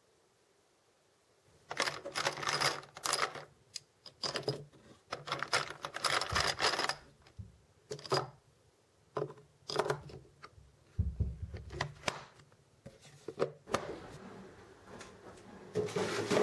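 Brass rifle cartridges clinking and rattling in plastic ammunition boxes as they are handled, with clicks of the plastic boxes. It starts about a second and a half in and comes in bursts with short pauses, with one dull bump partway through.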